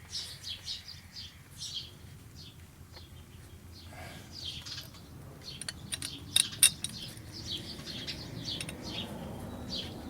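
Small birds chirping over and over, many short high chirps. About six seconds in come two sharp clicks close together, the loudest sounds, as the wheel's bolts are put back in by hand.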